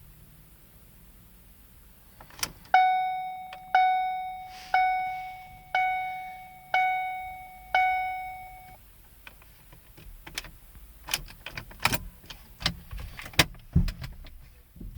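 Car warning chime in a 2013 Ford Focus dinging six times, about once a second, each ding fading away. It is followed by a string of sharp clicks and knocks, with keys jangling.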